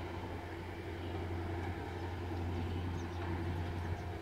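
Steady low rumble of a diesel-hauled freight train heard from far off as it moves away down the line.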